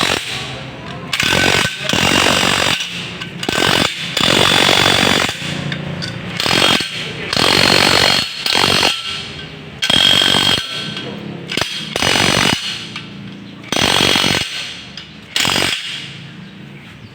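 A power tool run in repeated short bursts, about a dozen, each under a second, with a high whine inside the noise. It quiets near the end.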